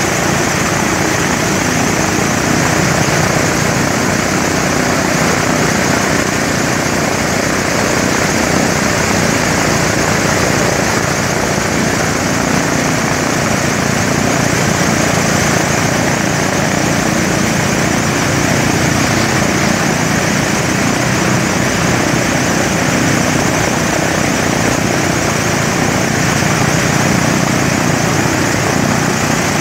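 Lockheed P2V Neptune air tanker's Wright R-3350 radial piston engines running steadily on the ground, propellers turning, at an even, unchanging speed.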